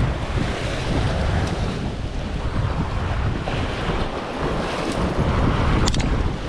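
Wind buffeting the microphone, with sea waves washing in behind it, and a sharp click near the end.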